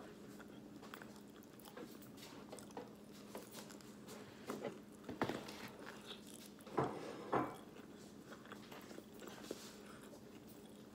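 Close-up eating of a honey barbecue chicken wing: quiet biting and chewing with scattered short smacks, the loudest two coming about seven seconds in. A faint steady hum lies underneath.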